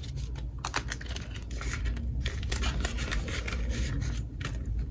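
Paper banknotes rustling and long acrylic nails clicking and tapping on a clear plastic binder pocket as cash is stuffed into the envelope, in many short, irregular clicks and rustles.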